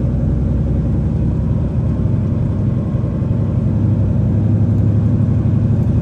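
Semi truck's diesel engine running at low road speed, heard from inside the cab as a steady low rumble that swells slightly about four to five seconds in.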